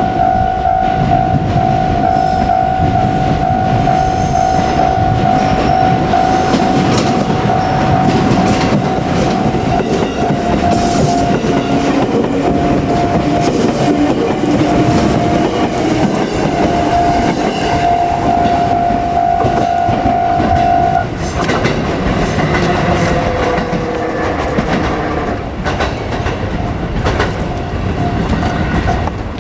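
JR Kyushu 787-series electric limited express running past a level crossing, wheels clacking over the rail joints, while the crossing's warning bell rings steadily. The bell stops about two-thirds of the way through and the train runs on.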